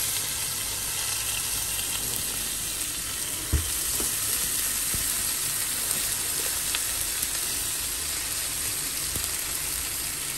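Mustard seeds, curry leaves and dried red chillies sizzling steadily in hot coconut oil in a pan: a tempering for sambar. There is one dull knock about three and a half seconds in.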